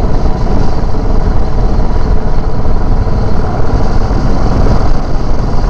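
Royal Enfield motorcycle riding at highway speed: steady engine running under a loud, fluctuating rush of wind on the rider-worn microphone.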